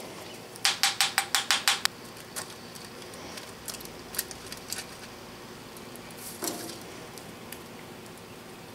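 Handling of a split plastic core box lined with aluminum foil as it is opened and the sand core released. About a second in comes a run of rapid, even clicks, about eight a second, for roughly a second. After that come scattered light ticks and foil crinkling.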